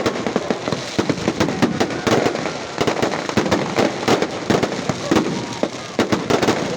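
Fireworks going off in a rapid, irregular string of sharp pops and bangs, several a second.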